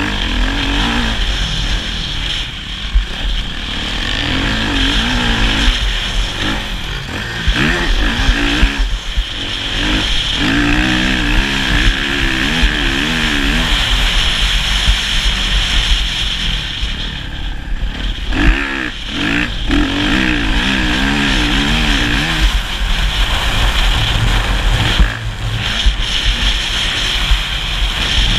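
Motocross motorcycle engine running hard, its revs rising and falling again and again as the throttle is worked, and dropping off briefly twice, over a steady low rumble.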